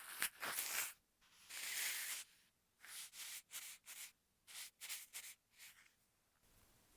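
Close-miked scratchy rubbing strokes: two longer strokes, then a run of about a dozen short, quick ones that stop about six seconds in.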